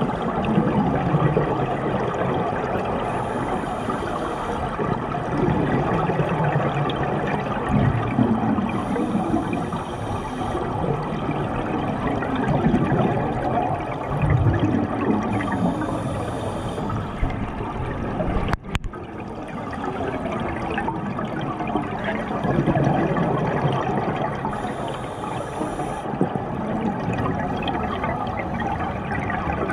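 Open-circuit scuba regulator breathing underwater: a hiss on each inhale, four times several seconds apart, and a gurgling rush of exhaled bubbles in between.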